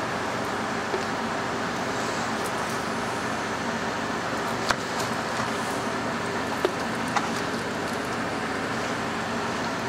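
A steady machine hum runs throughout, with a handful of sharp clicks as a knife blade knocks against a plastic cutting board while a breast is cut off a whole raw chicken.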